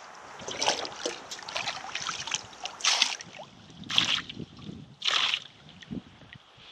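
Lake water splashing and sloshing as a stainless steel pot is dipped in the shallows and scooped full, in about four short splashy bursts.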